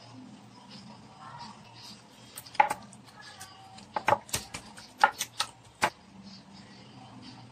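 Hands patting and rubbing seasoning into raw pork steaks on a ceramic plate, with a series of sharp clicks and knocks from about two and a half to six seconds in, against a faint steady hum.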